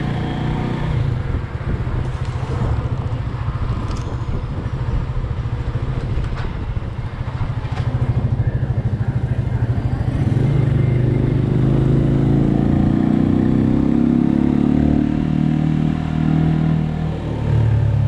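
Motorcycle engine running while the bike rides along a street, rising in level and revs about ten seconds in as it pulls away.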